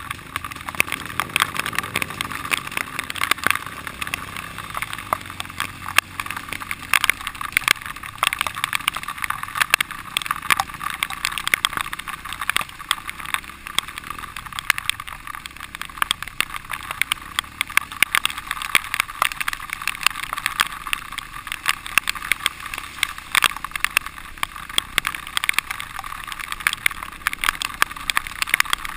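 Dirt bike ridden over a rough, muddy trail: a constant fast clatter of knocks and rattles as the bike jolts over the bumps, with the engine running underneath and its revs rising and falling during the first few seconds.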